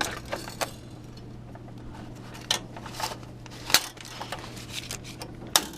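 Scattered sharp clicks and knocks of objects being handled, over a steady low hum.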